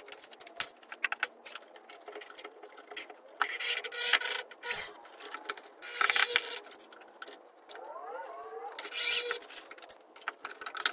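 Corded power drill running into wood in three short bursts, one spinning up in pitch before it bites, among clicks and knocks of tools and clamps being handled.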